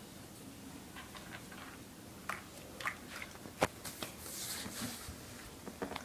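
A cat's paw scraping and tapping under a door as it reaches for treats: a scatter of light clicks and scratches, one sharp tap about midway, and a longer swishing scrape just after.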